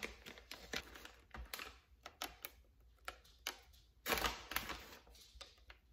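Chocolate chips being dropped into a stainless-steel mixing bowl of batter: scattered light clicks and taps, with a louder clatter about four seconds in.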